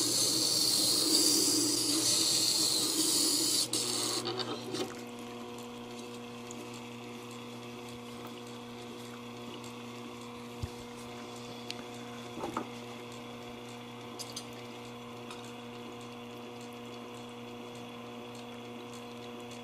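Plane blade being hollow-ground on a Tormek water-cooled grinding wheel: a wet, hissing grind for about four seconds while the edge is pressed to the stone to take more off its high side. Then the blade is lifted off and only the grinder's steady motor hum runs on, with a few small clicks.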